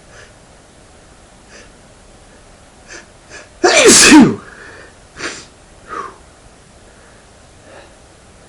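A man sneezing once, loud, with a voiced 'achoo' falling in pitch about four seconds in. A few faint short breaths come before it, and two short breaths follow it.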